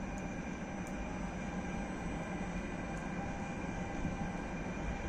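Trenitalia E464 electric locomotive approaching slowly at low speed, a steady drone with a few thin high steady tones in it.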